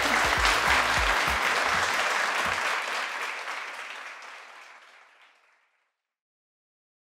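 Audience applauding, a dense clapping that fades out over a couple of seconds from about three seconds in.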